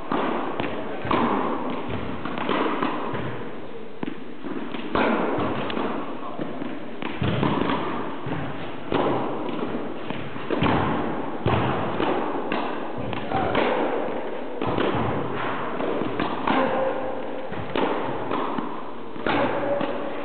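Tennis rally: a ball struck by rackets and bouncing on the court, a sharp thud every second or two.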